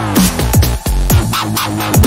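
Electronic background music with a steady beat and repeated downward-sliding bass notes.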